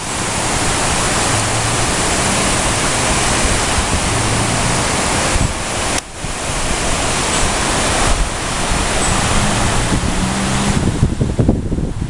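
Strong storm wind blowing as a loud, steady rushing noise, dipping briefly about halfway, then gusting unevenly and buffeting the microphone near the end.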